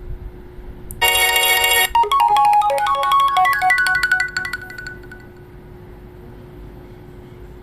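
HTC One Max phone speaker playing its built-in tones: a buzzy electronic beep lasting about a second, then a short jingle of chiming notes that rings out a few seconds later.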